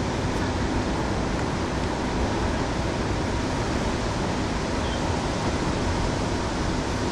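Steady rushing noise at an even level, with no distinct events in it.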